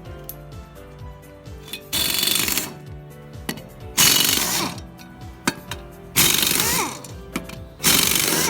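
Air impact wrench hammering in four short bursts about two seconds apart, each lasting under a second and dying away with a falling whine, over background music with a steady beat.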